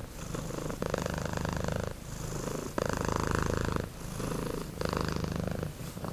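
Domestic cat purring steadily, the buzz swelling and easing with each breath about once a second.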